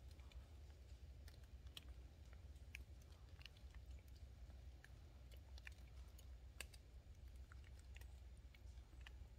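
Very faint, irregular small plinks and ticks of water seeping and dripping at a woodland spring, over a low steady rumble.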